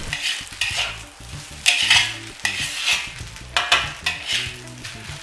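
Egg-coated rice being stir-fried in garlic oil in a wok, with repeated scraping stirring strokes about once or twice a second over a gentle sizzle as the heat is slowly raised.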